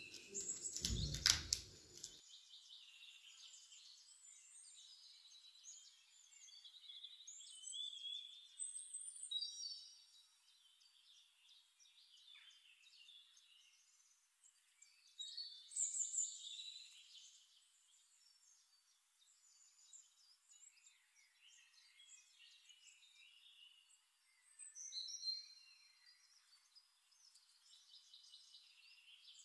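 A small paring knife slicing through raw carrot and bell pepper held in the hand: short, crisp, high cutting sounds in irregular bursts, with a heavier knock about a second in.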